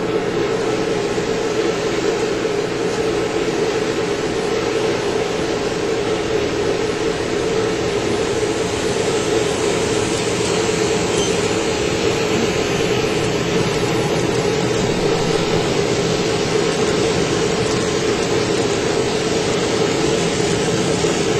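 N scale model freight trains running on the layout: a steady hum of locomotive motors and wheels on the track under an even hiss, with no change in level.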